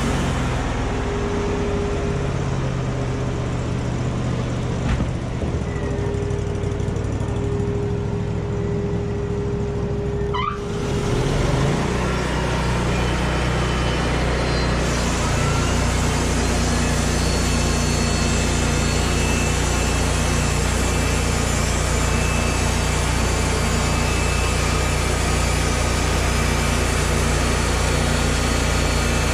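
Machinery engine running steadily, from the sawmill or tractor work. A steady higher tone sounds over it for the first third. The engine sound shifts abruptly about a third of the way in and again about halfway through.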